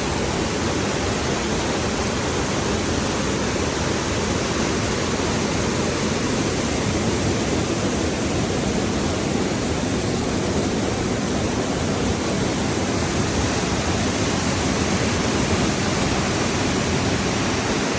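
Steady rush of the Jemez River pouring over the travertine Soda Dam waterfall.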